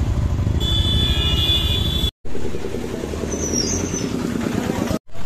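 Street traffic with motorcycle and other vehicle engines running close by. A steady high-pitched tone lasts about a second and a half in the first half, and a short shrill squeak comes later. The sound drops out briefly twice.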